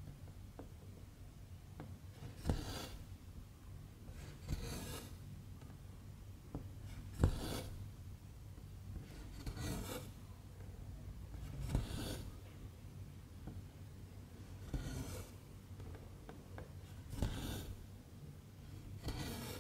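Embroidery thread pulled through stamped cross-stitch fabric: eight short rasps, one every two to three seconds, with small faint ticks between.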